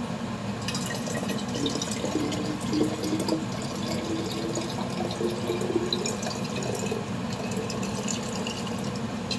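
Water poured from a glass pitcher into a narrow-necked glass bottle: a steady splashing stream, with a low tone that rises slowly in pitch as the bottle fills.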